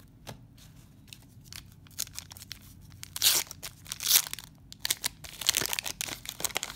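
Paper wrapper of a 1991 Donruss baseball card wax pack being torn open by hand: crackling rips, loudest about three and four seconds in, then a run of crinkling tears near the end.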